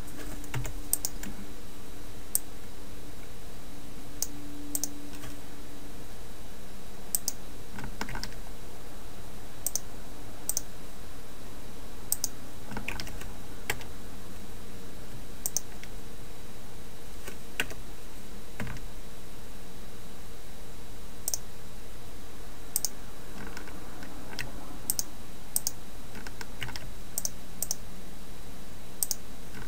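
Irregular clicks of a computer keyboard and mouse, some single and some in quick bunches with pauses between, over a faint steady low hum.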